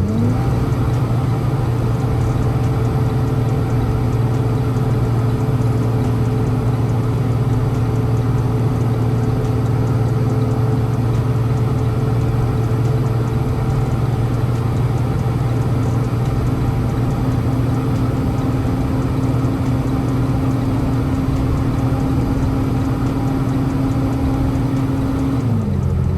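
Semi-truck diesel engine running steadily under way, heard from the cab over a constant rush of road noise. The engine pitch rises just after the start and falls away about a second before the end.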